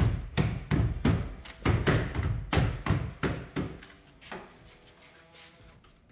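A mallet hammering a trim piece into place on a 1957 Chevy body, about three quick knocks a second, stopping about three and a half seconds in. Faint background music follows.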